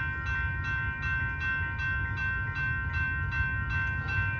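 Railroad grade crossing warning bell ringing steadily at nearly three strikes a second, with a low rumble underneath: the crossing has activated for an approaching train.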